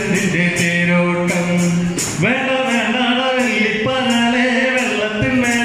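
Group singing a Malayalam folk song (nadan pattu) with a tambourine jingling on the beat about twice a second. A man's voice holds a low note, then about two seconds in the women's voices take up the line.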